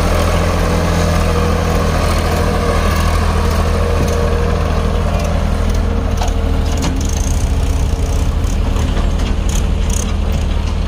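Massey Ferguson 7250 DI tractor's diesel engine running steadily while it pulls a trailer loaded with wet mud.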